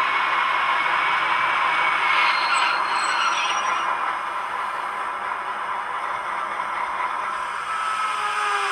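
Roco H0-scale model of a ČD class 754 diesel locomotive running slowly along the track, a steady hissing run sound with thin whining tones; near the end the whine falls in pitch.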